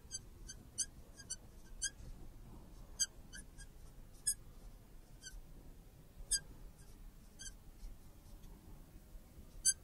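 Marker tip squeaking on a glass lightboard while writing: a dozen or so short, high squeaks at irregular intervals, faint, as letters and symbols are drawn.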